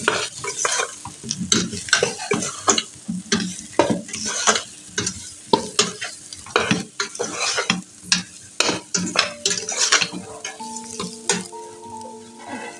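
A spoon stirring chopped unripe plantain as it fries in a pot, in irregular scraping strokes over the frying. Background music comes in near the end.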